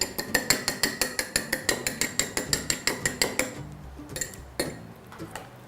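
Eggs being beaten in a bowl: a utensil clinks rapidly and evenly against the bowl, about seven strokes a second. The beating stops about three and a half seconds in, followed by a couple of single clinks.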